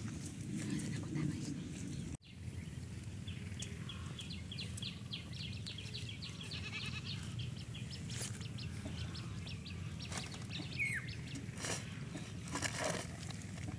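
Outdoor ambience with a steady low rumble, over which an animal gives a run of short high calls, about four a second, for several seconds, then a single falling call.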